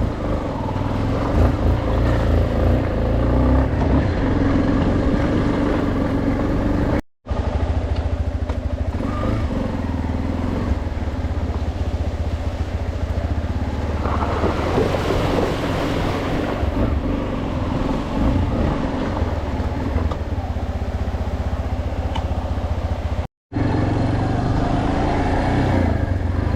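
Yamaha Lander XTZ 250's single-cylinder four-stroke engine running steadily while the bike is ridden along a dirt track, with a stretch of louder rushing noise about halfway through. The sound cuts out completely for an instant twice.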